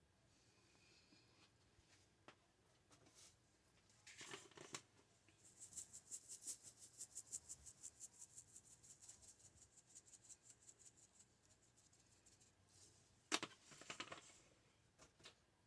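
Faint, quick scraping strokes, about five a second, for around six seconds, with short clusters of clicks and knocks from handling before and after.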